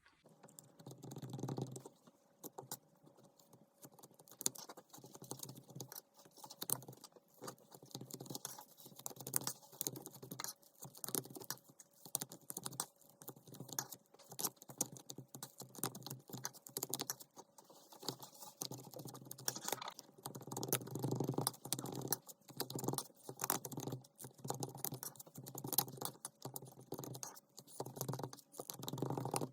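A ruler mixing and spreading sticky, chewy craft dough on a flat surface: a dense, irregular run of small clicks and taps, busier about two-thirds of the way through and again near the end.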